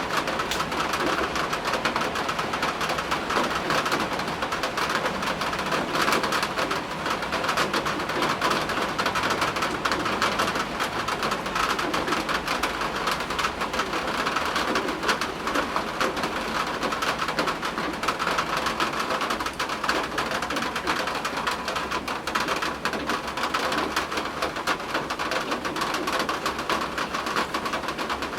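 Steady rain falling, a dense unbroken patter of drops.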